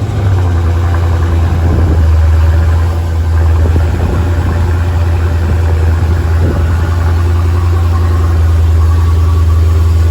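2020 Dodge Challenger Scat Pack Widebody's 6.4-litre HEMI V8 idling steadily just after a cold start, heard through the stock exhaust with the mid mufflers still in place.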